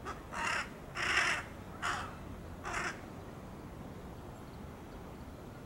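Fledgling large-billed (jungle) crow giving four harsh, hoarse calls in quick succession, the third one short, then falling silent about three seconds in.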